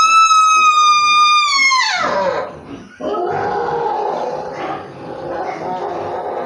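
A pig squealing while held by hand: one long, high scream that drops away about two seconds in, then lower, rougher squealing for the next few seconds.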